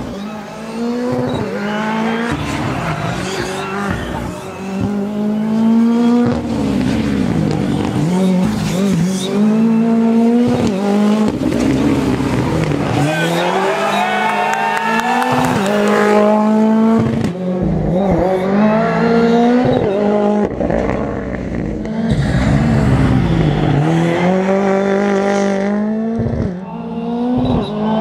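Ford Fiesta R5 rally cars' turbocharged four-cylinder engines at full throttle through hairpin bends. The engine note climbs in repeated rising sweeps as each gear is pulled, then drops back on lifting off and downshifting.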